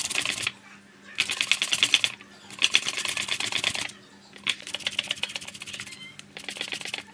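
A tomato being grated by hand on a flat stainless-steel grater: quick rasping strokes in runs of about one to one and a half seconds, broken by short pauses.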